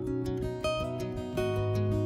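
Background music led by a strummed acoustic guitar.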